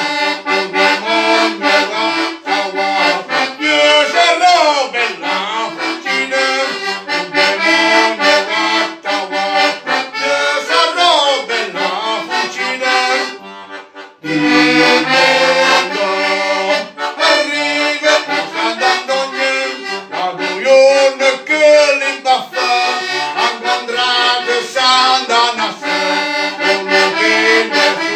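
Organetto, an Italian diatonic button accordion, playing a tune; the music breaks off briefly about halfway through and then starts again.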